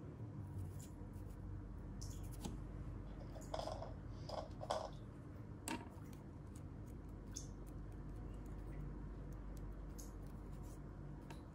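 Small plastic toy pieces and accessories being handled, with light clicks and scraping; a few louder rustles and a sharp click come about four to six seconds in, over a low steady hum.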